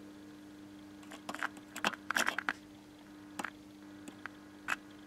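Old AM clock radio's speaker giving a steady low hum, with a scatter of short crackles and clicks as a screwdriver touches points on its circuit board from about a second in.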